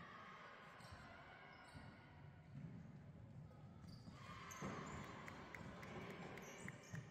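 Faint sounds of a basketball game: the ball bouncing, then, past the middle, a few short squeaks of sneakers on the hardwood court as players run.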